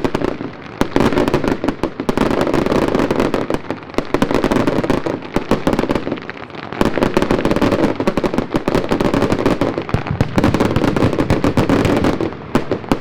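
Daylight fireworks going off: dense, rapid strings of bangs and crackles that come in surges, with a few brief lulls between them.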